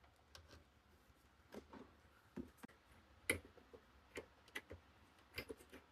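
Faint, irregular clicks and taps from multimeter test probes and wire leads being handled against the components of an opened microwave oven, about half a dozen over a few seconds.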